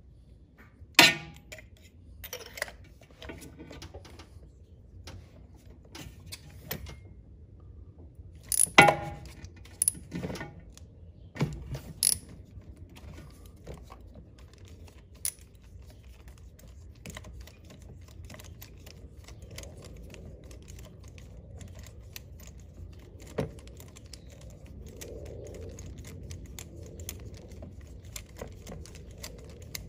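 Steel hand tools clinking and knocking as a socket extension and wrench are worked down into a spark plug well: several sharp metallic clinks in the first dozen seconds, then light, rapid clicking as the wrench turns the spark plug loose.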